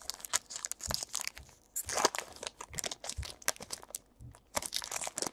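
A stack of trading cards being flipped through and shuffled by hand, a quick irregular run of clicks and rustles as the cards slide and snap against each other.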